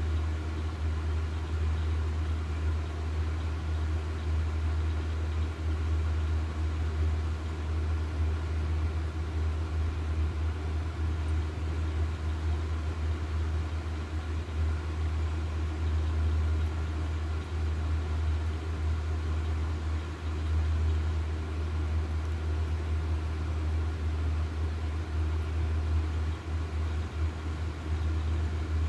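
A steady low mechanical hum that holds without a break, its weight in a deep rumble with faint steady tones above it.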